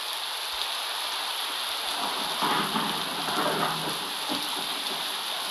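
A thunderstorm sound effect from a phone app: steady rain hiss, with a roll of thunder swelling about two seconds in and dying away by about four seconds.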